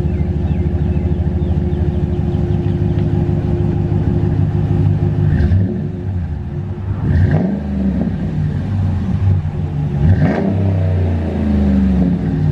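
2014 Ram 1500's 5.7-litre Hemi V8 idling with a low, understated bumble through a new Flowmaster American Thunder 2.5-inch dual stainless cat-back exhaust. It is revved twice, about seven and about ten seconds in, each rev rising and dropping back to idle.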